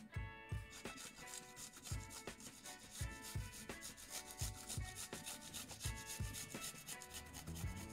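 Garlic grated on a small flat metal hand grater: a quick run of rasping strokes over background music.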